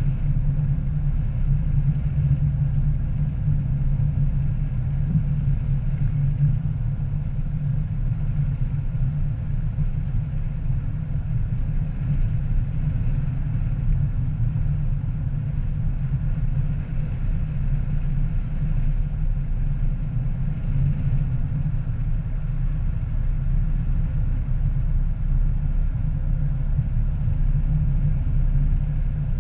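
Car driving at steady speed on a highway, heard from inside the cabin: a steady low rumble of engine and road noise.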